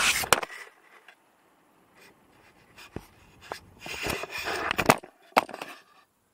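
Wind and road noise cuts off about half a second in. It is followed by scattered clicks, knocks and rustling as the camera is handled and moved, with the loudest rustling and knocks around four to five seconds in.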